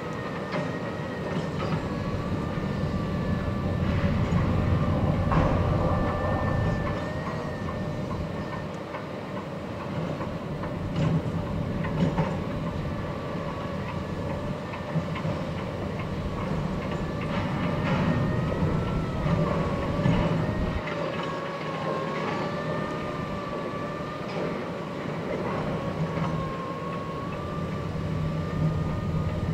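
Boat engines running: a steady low rumble with a faint whine above it that wavers slightly in pitch.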